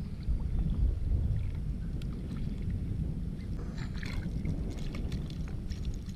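Hooked fish splashing at the water's surface beside a kayak, a cluster of short splashes and clicks in the second half, over a steady low wind rumble on the microphone.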